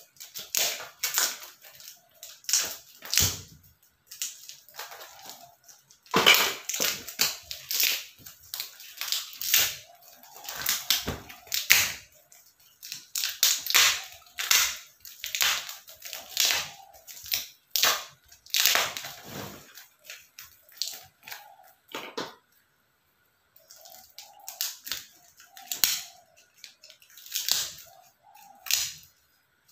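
Irregular handling noise of the wrapping being pulled and torn off a coil of plastic-coated aluminium wire as it is unpacked, in uneven bursts with short pauses between.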